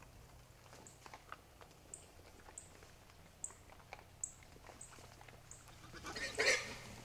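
Scattered clicks and crunches of an animal moving close by, with a louder noisy burst about six seconds in. A short high chirp repeats every half second to a second throughout, over a low steady hum.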